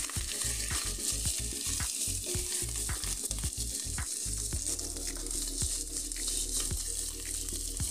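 Sliced onion and mushrooms sizzling in hot oil in a wok, stirred by a wooden spatula. The spatula scrapes and knocks against the pan often in the first half and less often after.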